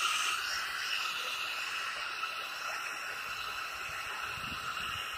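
Compressed air hissing steadily out of a 2008 Freightliner Cascadia's disconnected air lines, slowly getting quieter. The truck's air system is being bled down before the leveling valve is swapped.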